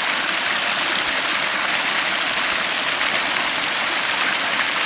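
Pumped water splashing steadily down a rock waterfall.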